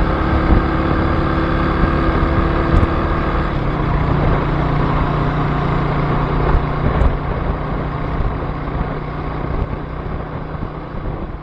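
Suzuki GN125's single-cylinder four-stroke engine running steadily while the motorcycle is ridden, the engine note shifting about three and a half seconds in and fading away near the end.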